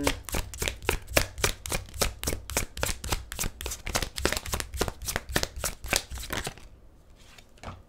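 A deck of tarot cards being shuffled by hand, the cards slapping together in quick, even strokes about six times a second; the shuffling stops about six and a half seconds in.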